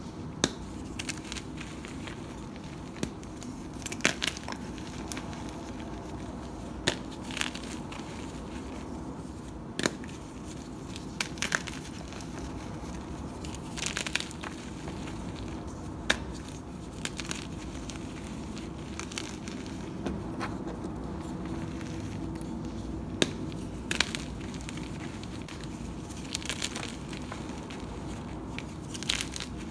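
Bare hands crushing and squeezing blocks of gym chalk coated in charcoal powder in a plastic bin: soft crumbling broken by sharp crunches and snaps every second or two as chunks break apart.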